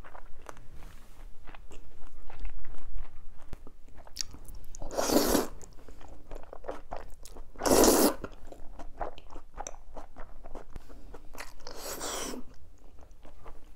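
Close-miked eating of jjajangmyeon noodles in black bean sauce: steady chewing with many small wet mouth clicks, and three louder noisy slurps, each about half a second long, as mouthfuls of noodles are sucked in, about five, eight and twelve seconds in.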